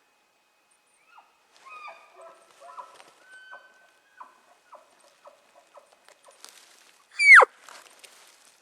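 Elk mews: a short, loud high call about seven seconds in that slides steeply down in pitch. Before it, in the first few seconds, come fainter chirping calls.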